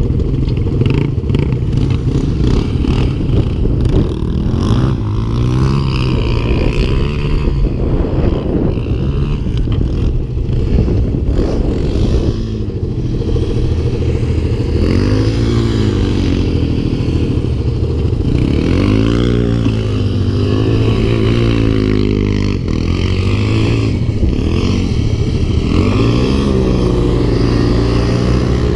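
Yamaha Grizzly 700 quad's single-cylinder four-stroke engine running, its revs rising and falling several times in the second half as it rides off.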